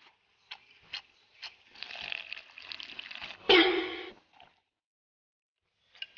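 Slurping soup from the rim of a bowl, with small wet mouth clicks and sucking noises. About three and a half seconds in comes a short, loud vocal sound, a grunt or exclamation.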